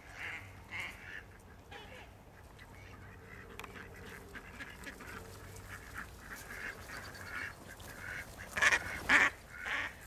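Ducks quacking again and again, with two much louder quacks near the end.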